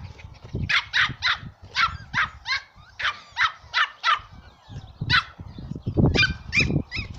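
Dog barking in a string of about a dozen short, high-pitched yaps, with a few low thumps near the end.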